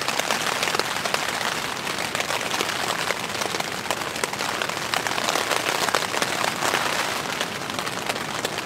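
Rain pattering on the hot tent's fabric, heard from inside the tent: a steady, dense patter of many drops.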